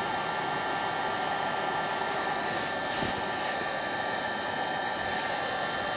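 Heat gun (hot-air gun) running steadily, a blowing noise with a constant whine from its fan motor, softening plastic so it can be bent.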